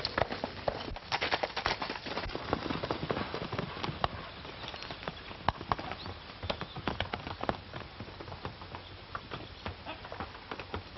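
Horses' hooves galloping, a quick dense run of hoofbeats that is loudest in the first couple of seconds and then carries on more faintly. It is heard on an old film soundtrack with a dull, narrow sound.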